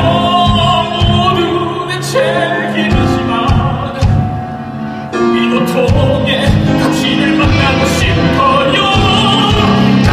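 Stage musical number: voices singing long held notes in Korean over a piano accompaniment of rhythmic low chords, with a brief softer passage near the middle.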